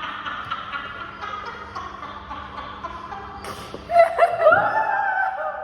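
People laughing, with a loud, high-pitched voiced squeal about four seconds in, over faint background music.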